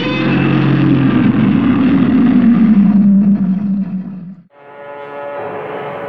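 Godzilla roar sound effect: a long, rough cry that fades out after about four and a half seconds. Brass-led orchestral music then begins.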